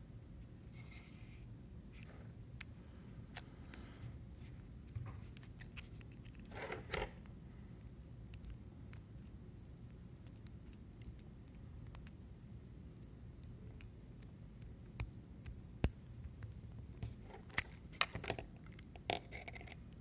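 Hook pick and tension wrench working in the cylinder of an Ace 40mm laminated steel padlock as it is being picked: faint metallic scrapes and scattered small clicks, with a few sharper clicks in the last few seconds.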